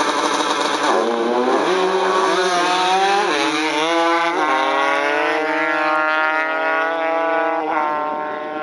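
Two drag-racing motorcycles launching off the start line and accelerating hard down the strip. Their engine notes climb and drop sharply at each upshift, about four times in the first four seconds, then grow fainter as the bikes pull away.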